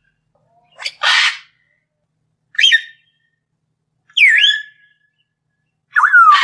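Lovebirds squawking in four short separate calls, about one every second and a half. The calls mix harsh screeches with sharp whistled notes that swoop up and down in pitch.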